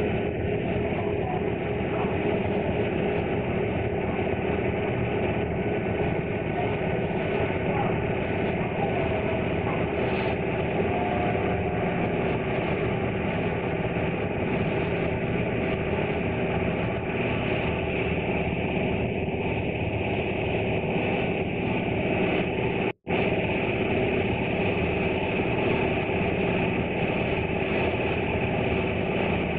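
Small harbour ferry's engine running steadily, heard on board as the boat crosses the bay, a constant hum with a few steady tones. The sound breaks off for a split second about two-thirds of the way through.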